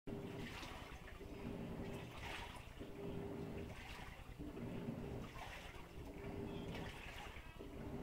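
Hitachi SF-110LJS top-loading washing machine agitating a load. Water sloshes and splashes in the tub, and the motor hums in repeated runs of about a second as the pulsator turns the wash back and forth.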